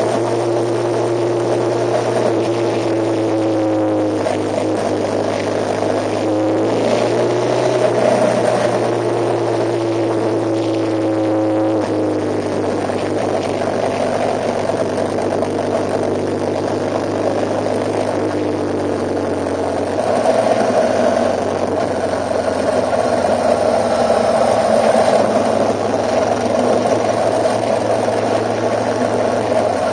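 A vehicle's engine running steadily with a low hum. A whining tone shifts up and down in pitch during the first twelve seconds, and the sound grows a little louder about twenty seconds in.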